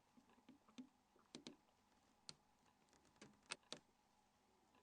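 Faint, scattered plastic clicks, about seven over a few seconds, from the Nokia 5700's right side cover and its latches as it is pried loose with an SS93 opening tool. The sound is otherwise near silence.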